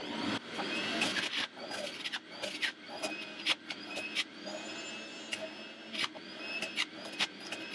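Breville centrifugal juicer running at full speed: a loud motor whine that wavers in pitch under load, with frequent sharp clacks and crunches as fruit and vegetables are pushed down the feed chute onto the spinning cutter.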